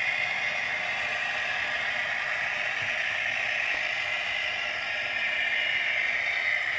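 OO gauge model train running along the track, a steady mechanical whirr of its small electric motor and gears with wheels on the rails.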